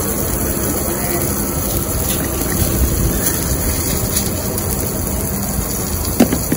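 Bacon-wrapped hot dogs, peppers and onions sizzling on a street cart's flat-top griddle, a steady hiss, with a sharp click about six seconds in.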